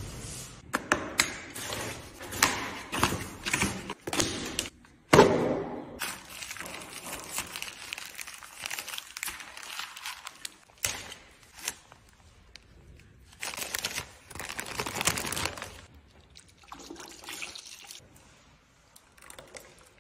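Irregular handling noises of wet paint work: plastic crinkling, wet squelches and dripping paint, in a string of short noises with a sharp thump about five seconds in.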